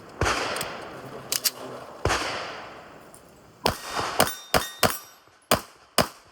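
Pistol shots from a SIG P211 GTO 2011-style 9mm: two loud shots about two seconds apart, each ringing out. In the second half comes a quicker string of about six sharp cracks.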